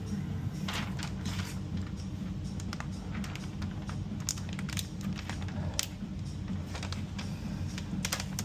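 Tint film being handled and worked onto car window glass: scattered light clicks, ticks and crinkles over a steady low hum.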